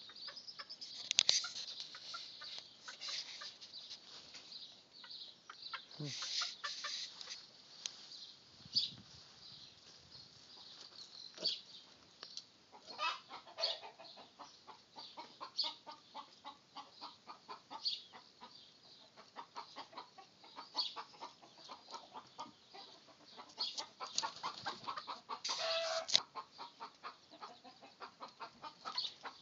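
Domestic hens clucking, a long string of short calls with brief clusters and pauses.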